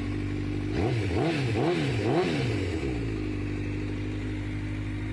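A 2015 Honda CBR1000RR SP's inline-four engine, fitted with a Yoshimura exhaust, idling. About a second in it is blipped four quick times in a row, then settles back to a steady idle.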